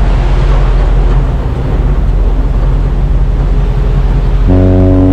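Pilot boat under way alongside a large ship: its engines running with a loud rush of water and wind. About four and a half seconds in, a steady droning hum of several pitches sets in and holds.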